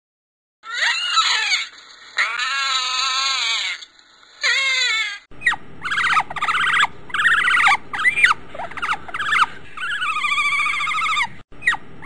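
Otter calling: a run of high-pitched, wavering squeals and chirps, coming more often in the second half over a low background hiss.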